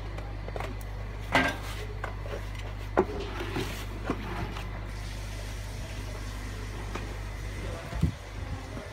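Cleaver knocking and scraping against a wooden chopping board and a horseshoe crab's shell as the crab is cut apart: a few sharp knocks spread through, over a steady low hum.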